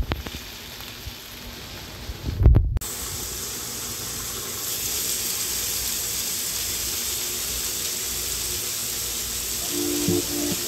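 Chicken pieces sizzling on an electric countertop grill, a steady even hiss, after a couple of thumps from handling in the first seconds. Plucked-guitar music comes in near the end.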